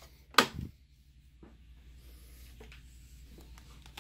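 A single sharp clack about half a second in as parts of a disassembled LCD projector are handled and set down, followed by faint small clicks and rubbing over a low steady hum.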